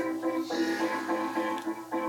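Guitar playing fast, evenly picked repeated notes, about six a second, shifting to a new set of notes about half a second in.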